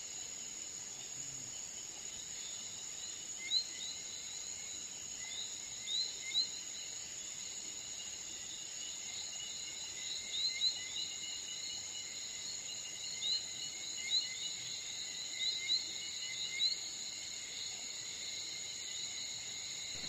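Steady high-pitched insect chirring, with short high chirps coming at irregular intervals and more often in the second half.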